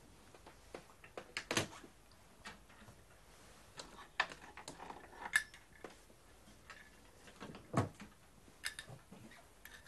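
Scattered knocks and clicks of someone rummaging in a small wall cabinet and handling a key, the loudest knocks about a second and a half, five and a half, and eight seconds in.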